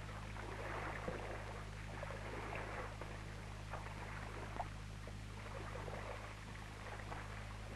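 Faint splashing of dip wash as sheep are pushed through a sheep-dip bath with a dipping crutch. A steady low hum runs underneath.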